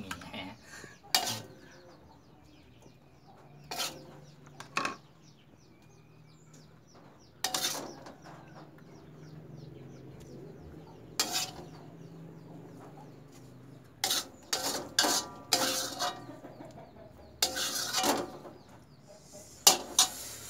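Metal spatula scraping and knocking against a wok and plates while fried noodles are served out: irregular clinks and scrapes, several coming close together in the second half.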